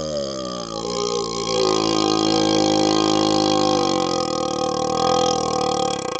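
A long, drawn-out burp blown through a hollow vacuum extension tube, which gives it an odd, tube-like sound. Its pitch dips and comes back up near the start, then holds steady until it cuts off at the very end.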